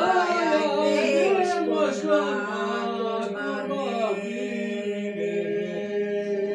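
Unaccompanied Aromanian (Vlach) folk song sung by a small group: voices hold a steady drone while a sung melody line moves above it.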